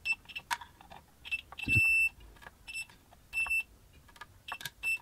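Digital multimeter's continuity beeper sounding in short, irregular beeps as the probe tip is touched to the switch points, one beep held longer about two seconds in, with light clicks of the probe between them. Each beep signals continuity, a closed connection, between the probed points.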